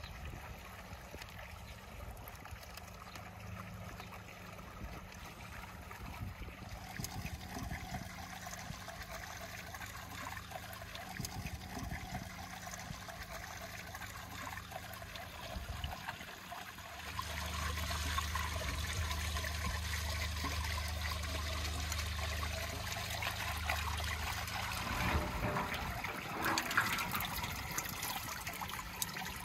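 Whey trickling and dripping from plastic colanders of fresh cheese curds back into a large metal pot of whey, getting louder past the middle, with a low steady hum for several seconds there.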